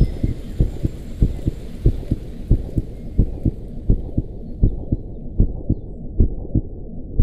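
Low, heavy thumps in a steady pulse of about one and a half beats a second, in an electronic soundscape. A fainter high hiss fades out about halfway through.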